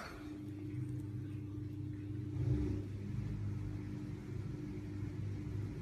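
Kitten purring: a steady low rumble that swells briefly about two and a half seconds in.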